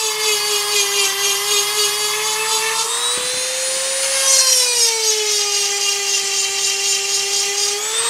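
EzzDoo rotary tool with a diamond grinding bit, running at its top speed setting and grinding chainsaw chain teeth. Its whine drops in pitch under load, picks up again about three seconds in, then sags under the next tooth and rises again near the end, over a grinding hiss.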